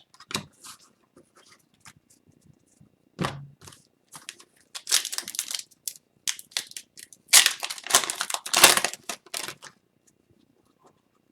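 Foil trading-card pack wrapper of Upper Deck hockey cards crinkling and tearing as it is opened by hand, with cards being shuffled. The rustling comes in scattered bursts and is busiest from about seven to nine seconds in.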